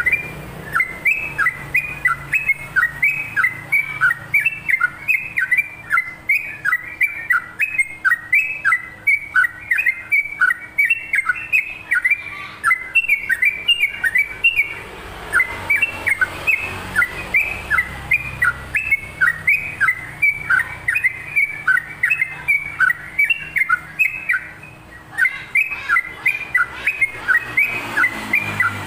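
Yellow-vented bulbul (trucukan) singing a long unbroken run of quick chattering notes, about two a second, each a short downward-slurred whistle. The run has a short break near the end.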